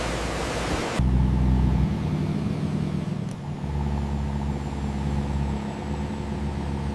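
A low, steady engine rumble with a droning hum. It comes in after about a second of broad hiss that cuts off suddenly.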